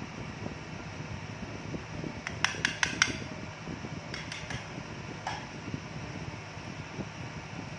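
Gold panning of paydirt: stones and gravel clinking against the pan in a quick run of about four sharp clicks a little over two seconds in, then a few lighter clicks and a short ring. A steady low rumble runs underneath.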